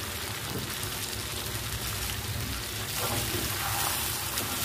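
Tofu and tempeh sizzling and bubbling in a wok as the sweet soy sauce glaze cooks down, a steady hiss. About three seconds in a spatula starts stirring them through the sauce and the sound gets louder.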